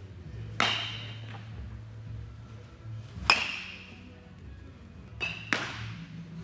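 Baseball bat striking a ball off a batting tee: one sharp crack about three seconds in, the loudest sound. Other single sharp knocks come about half a second in and twice close together near the end, over a steady low hum.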